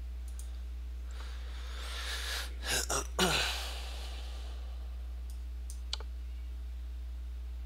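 A man's heavy breathy sigh with short throat sounds, ending in a brief falling hum, about two to three seconds in. A few mouse clicks come before and after it.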